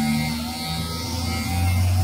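Background music with plucked guitar and stepping bass notes, the loudest bass note about one and a half seconds in, over the steady buzz of an electric hair clipper running.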